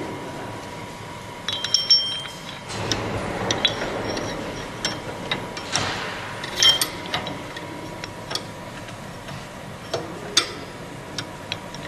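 Roofing-nail collator machine running: loose steel nails clink and ring against metal at irregular intervals over a faint steady hum.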